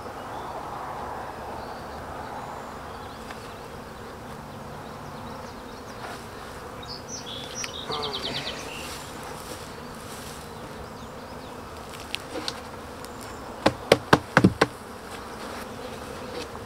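Honey bees buzzing in a steady hum around an open hive. Near the end comes a quick run of sharp wooden knocks as the emptied wooden nuc box is knocked over the hive to shake the last bees in.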